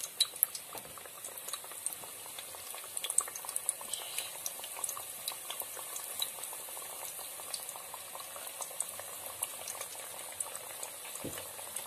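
A freshly added batch of sweet dough tikkis deep-frying in hot oil: a steady bubbling sizzle scattered with many small, sharp pops and crackles.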